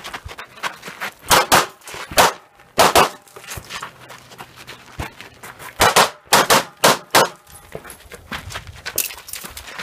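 Pistol shots fired in quick pairs, about a dozen in two strings with a pause of about two seconds midway and one more shot near the end.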